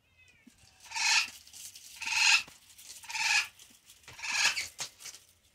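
Pet bird squawking loudly four times, about once a second, after a short falling whistle at the start.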